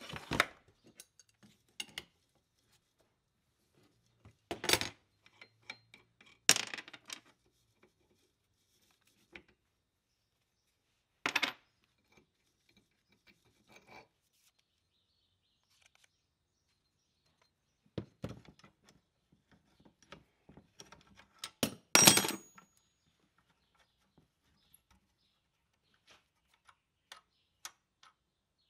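Metal clanks and clinks as the rusty parts of a 1930s Sioux ball-bearing bench grinder are handled and taken apart: about six sharp knocks with quiet stretches between them, plus small clicks. The loudest knock comes about three-quarters of the way through.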